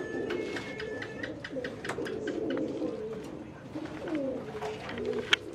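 Domestic pigeons cooing, low wavering coos repeating, with scattered light clicks and taps.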